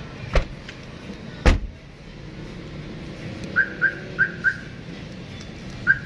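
Trunk lid of a Mitsubishi Mirage G4 sedan slammed shut with a thud about a second and a half in. Then a newly installed aftermarket car alarm gives four short chirps in quick succession, and two more near the end, as its remote is pressed for the trunk-release test.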